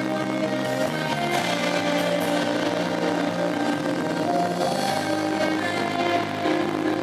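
A live band playing loud, amplified music, with electric guitar and drums; held chords run on without a break.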